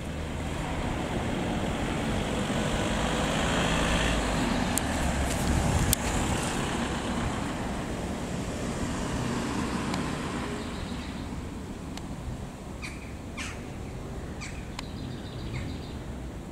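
Road traffic noise: a vehicle passing, its rushing sound swelling for several seconds and then slowly fading. A few short bird chirps come near the end.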